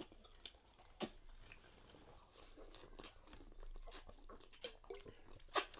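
Faint close-up eating sounds: biting into and chewing buttery corn on the cob, with scattered crunches and wet mouth clicks, a sharper click about a second in and another near the end.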